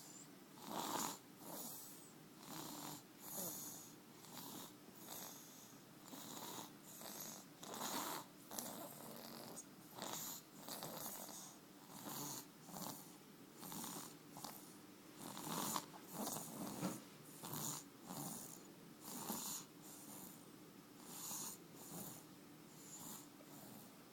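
Soft, quick snoring in a steady rhythm of about one breath a second, each snore a short breathy rasp.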